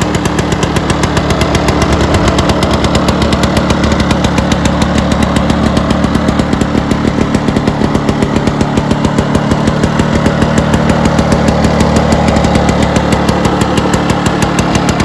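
Victa Commando two-stroke lawnmower engine running steadily, with a fast, even firing pulse.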